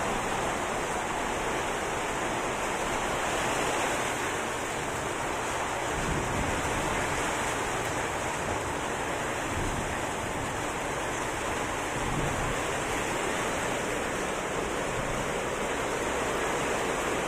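Heavy rain pouring down steadily, an even hiss with no letup.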